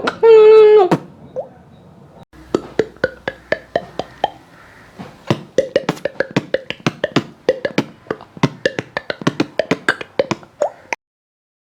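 Beatboxer's mouth-made sound effect. A loud held voiced tone slides down and stops about a second in. After a pause comes a long run of sharp mouth clicks and pops with short pitched blips, growing quicker, that stops abruptly near the end.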